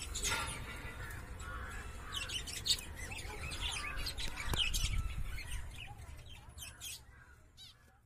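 Budgerigars chirping: clusters of quick, high chirps, thickest in the middle and thinning out near the end, over a low handling rumble, with a single knock about halfway through.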